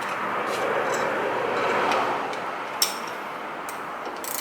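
A few light, scattered metal clicks over a steady hiss, from the retaining screw being put back into a new brake rotor on the hub.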